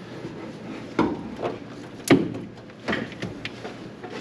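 A handful of knocks and clunks as a new brake master cylinder is worked into place at the firewall, the loudest about two seconds in.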